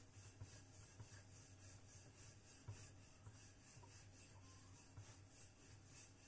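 Faint rubbing of a wooden rolling pin rolling out dough on a wooden board, with a few soft knocks, over a low steady hum.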